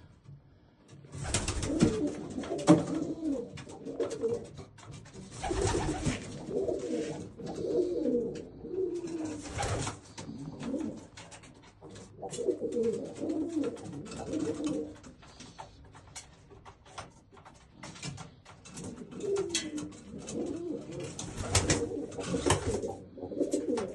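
Old German Owl pigeons cooing in repeated low, wavering phrases, with a few short, loud bursts of noise among them and some light clicks near the end.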